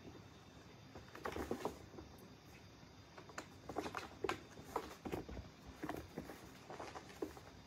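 Kittens' paws scrabbling and tapping on a corrugated cardboard scratcher and carpet as they play: irregular soft scuffs and light thumps in small clusters.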